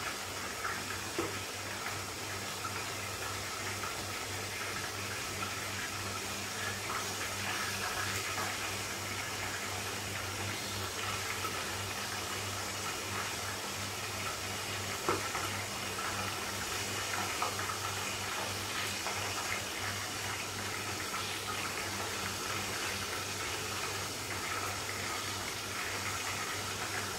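Chicken pieces frying in oil in a covered frying pan over a gas burner: a steady sizzling hiss with a few brief pops, over a low steady hum.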